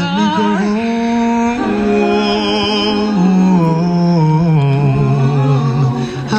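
Music with a singer holding long, wavering notes over accompaniment, the melody stepping down in pitch through the phrase.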